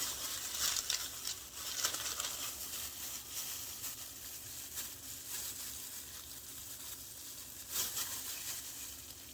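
Food-prep gloves crinkling and rustling as gloved hands press and cut soft bagel dough: irregular soft scrapes and crinkles over a steady hiss.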